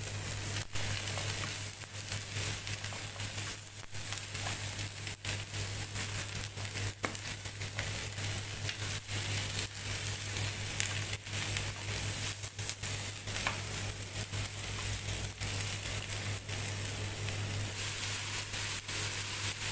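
Green beans, carrots and chicken sizzling in oil in a nonstick frying pan as they are stir-fried, with scattered light clicks of a slotted spatula against the pan over a steady low hum.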